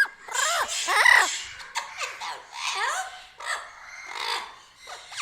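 Parrot calling and chattering: a quick string of short calls whose pitch arches up and down, mixed with harsh, noisy squawks.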